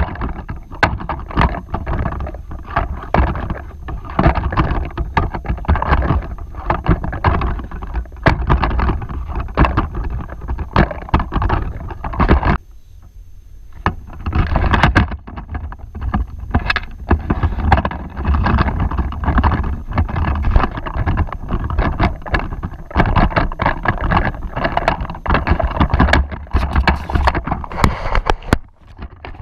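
Gusty wind buffeting the microphone with rumbling and crackling, loud throughout apart from a short lull about halfway through.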